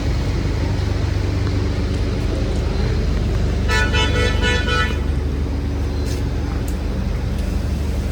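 A vehicle horn honks once for about a second near the middle, over a steady low engine rumble and the hiss of rain and street traffic.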